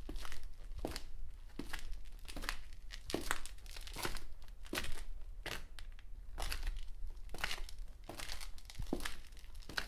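Footsteps at a steady walking pace, roughly one step every three-quarters of a second.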